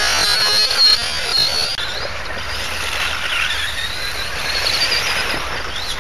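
Electric motors of several 1/18-scale RC18B2 off-road buggies whining, the pitch rising and falling with throttle, over a steady hiss of tyres on hard-packed clay.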